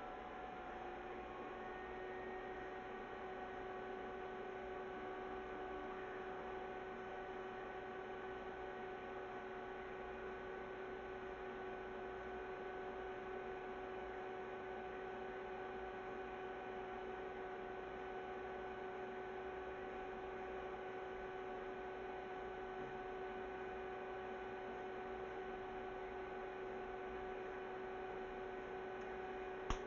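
Homemade HHO hydrogen torch rig running steadily: an even hum with a constant whistling tone over a light hiss.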